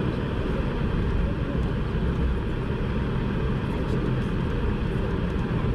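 Boeing 747-400 cabin noise while taxiing, heard from a window seat over the wing: the four GE CF6-80C2 engines running at low taxi thrust, a steady low drone with no sudden changes.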